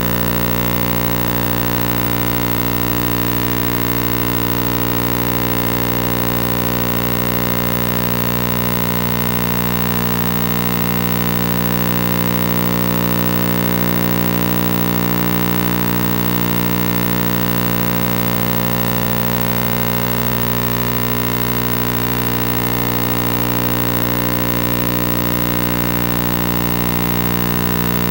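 A loud, steady droning hum with many overtones that holds the same pitch and level throughout, with no speech.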